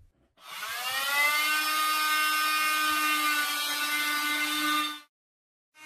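Corded handheld power tool spinning up to a steady high whine as it trims the ends of a PVC pipe bow. It stops abruptly about five seconds in and starts again near the end.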